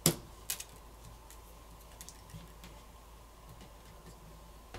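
Two sharp clicks about half a second apart: a metal pry tool popping press-fit flex-cable connectors off a smartphone's main board. Faint small ticks of the tool and handling follow.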